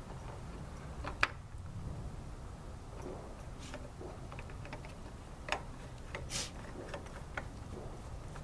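Scattered light clicks and small knocks of a new spin-on oil filter being screwed onto its mount by hand, the loudest about a second in, over a low steady rumble.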